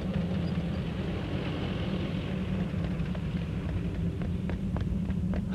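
Steady blizzard wind with a low rumble beneath it, as a sound effect on a film soundtrack, with a few faint ticks.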